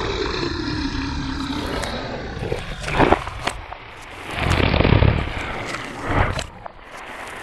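Monster sound effects: a drawn-out roar falling in pitch and fading over the first couple of seconds, then three short, harsh roars.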